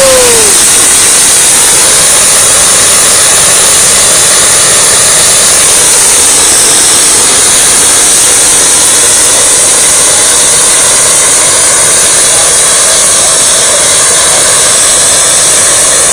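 Hot-air balloon's propane burner firing in one long continuous burn, a loud, steady rushing blast, heating the envelope for lift-off.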